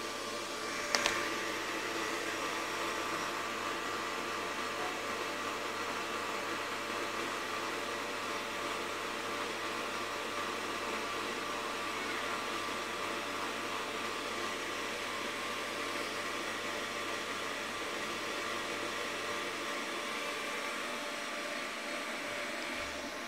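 Steady fan-like whooshing noise with a faint low mains hum. The hum fades out about three seconds before the end, and there is a single sharp click about a second in.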